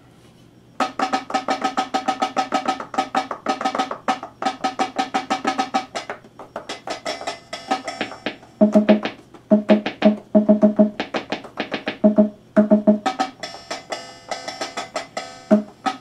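An instrument playing a quick run of evenly repeated, sharply attacked notes, about five or six a second. The notes shift to a lower pitch about halfway through.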